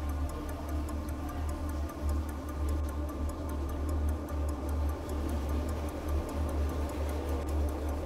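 A fast, even ticking, about five ticks a second, over a steady low hum.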